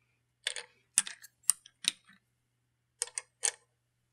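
Dominoes clacking as they are set one by one onto a stack on a kitchen scale's pan. A run of sharp clicks comes about half a second to two seconds in, then three more about three seconds in.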